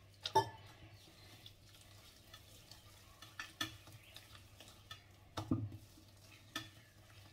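Soft, loose maida dough being mixed and squeezed by hand in a stainless steel bowl, with a few short knocks as the hand and bowl strike the steel.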